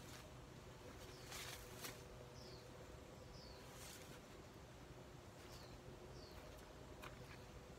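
Faint outdoor quiet with a small bird giving short, falling chirps four times, and a few brief rustles of leaves and branches from someone climbing down out of a tree.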